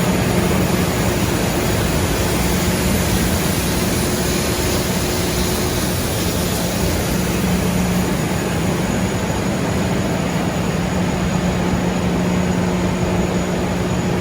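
Machinery running steadily while a grain truck unloads at the elevator: an even rushing noise over a constant low hum.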